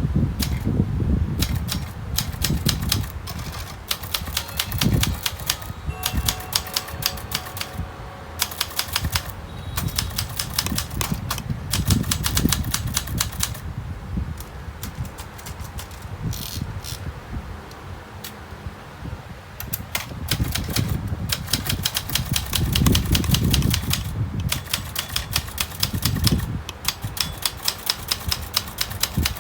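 Brother Valiant manual portable typewriter being typed on: fast runs of keystrokes clacking, broken by short pauses, with a sparser stretch about halfway through.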